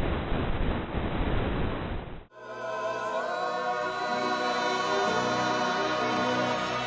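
Steady rushing wind noise on the FPV drone's onboard camera microphone, cut off abruptly about two seconds in. Background music with long held notes follows.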